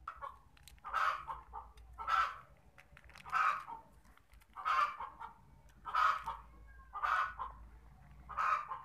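A chicken calling over and over, about eight short calls spaced a little more than a second apart.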